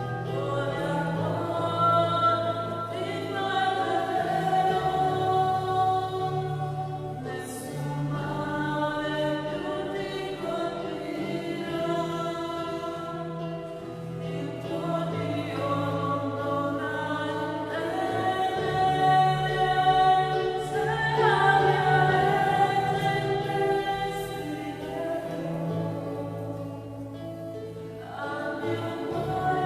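A choir singing slowly in long held chords, the lowest voices moving to a new note every second or two.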